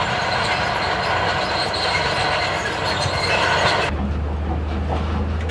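Heavy construction machinery working with a high metallic squealing and grinding. About four seconds in it cuts abruptly to a steady low engine drone.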